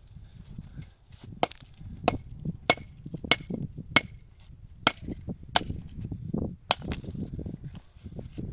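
A series of about eight sharp, evenly paced blows, a little faster than one a second, some leaving a brief ring.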